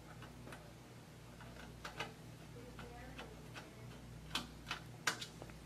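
Light metallic clicks and ticks of a screwdriver and small mounting screws against a steel drive cage as an SSD in adapter brackets is screwed into a 3.5-inch drive bay. A few sharper clicks come about two seconds in and again near the end, over a faint low hum.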